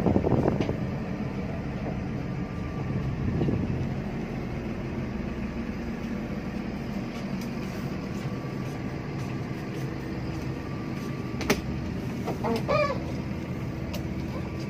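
Cabin drone of a Hino RK8 R260 coach under way: the steady hum of its diesel engine and road noise heard from inside, with a couple of knocks at the start and a few seconds in, a sharp click later, and a short wavering pitched sound near the end.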